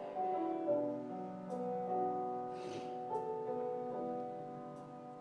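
Soft keyboard music playing slow, held chords that change every second or so, fading a little toward the end.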